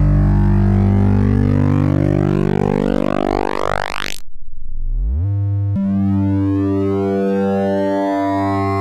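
Synthesized oscilloscope-drawing waveform: a low drone with many stacked overtones whose upper tones sweep steadily upward. About four seconds in it cuts out briefly, glides up in pitch, and settles into a new steady drone that pulses about once a second.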